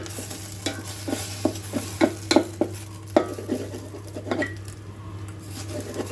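Scrambled eggs being stirred inside an electric kettle: irregular scrapes and taps of a utensil against the metal pot, over a light sizzle.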